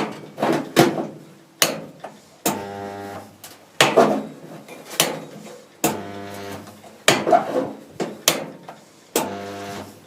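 Resistance spot welder joining steel body panels: three welds, each a sharp click as the tongs clamp, then about a second of steady electrical hum from the welder while the current flows, ending in another click. Knocks and clatter between the welds as the tongs are moved along the seam.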